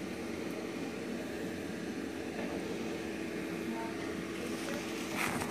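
Steady mechanical hum with a constant low tone and a brief rustle near the end.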